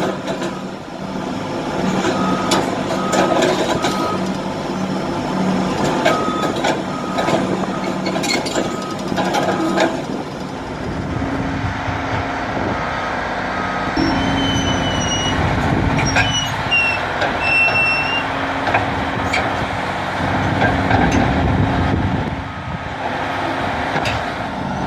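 Heavy earthmoving machinery working, its diesel engine running with a backup alarm beeping about every 0.7 seconds for the first ten seconds. From about the middle on, the engine note carries on with a steady low hum, and a few short high squeals come between about 14 and 18 seconds.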